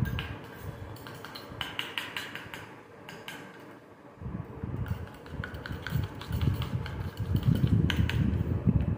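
Steel spoon stirring and scraping a thick gram-flour and curd paste in a small stainless-steel bowl, with quick light clinks of metal on metal. From about four seconds in, a dull low rumbling of handling grows louder as the bowl is lifted and stirred in the hand.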